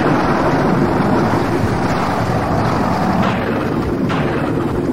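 Thunderstorm downpour: a steady rushing noise of heavy rain, with wind buffeting the microphone.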